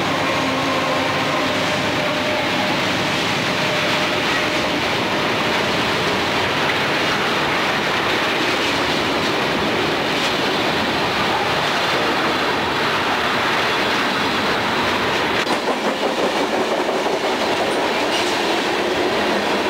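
Freight train rolling past at close range. A diesel locomotive's engine is heard in the first couple of seconds as the last units go by, then the steady rumble of tank car and hopper wheels on the rails. The low rumble thins out about three-quarters of the way through.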